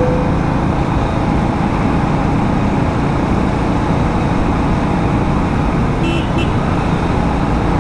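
Steady wind and road noise of a motorcycle ride picked up by the rider's action camera. A vehicle horn gives a short double toot about six seconds in.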